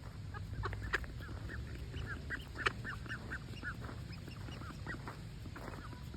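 Ducks calling: a quick run of short quacks, about three a second, in the middle, with scattered single calls before and after.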